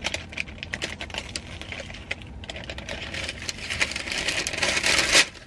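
Close-up crunching and chewing of a flaky pastry topped with hazelnuts, with the paper bag it is held in rustling; a rapid run of small crackles, with a louder crackle just before the end.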